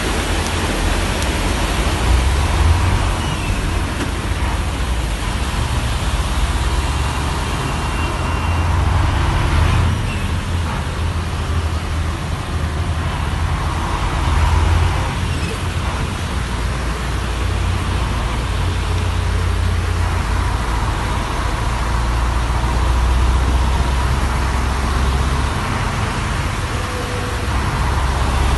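Steady rushing noise of floodwater and car traffic on a flooded street, with a heavy low rumble underneath.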